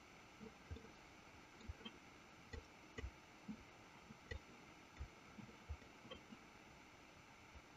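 Near silence: faint room tone with scattered soft clicks and low knocks, about one or two a second, from a computer mouse being clicked and moved on the desk.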